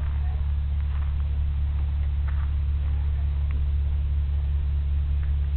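Steady low hum of an idling motor.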